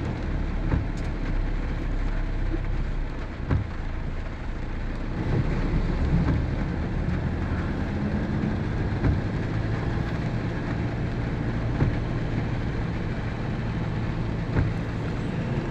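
Heavy rain falling steadily, with a vehicle's engine running underneath and a few scattered knocks.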